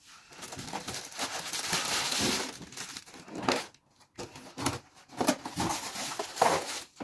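Clear plastic wrapping and a cardboard box crinkling and rustling as a ring light is unpacked. The sound runs steadily for the first couple of seconds, then comes in short bursts.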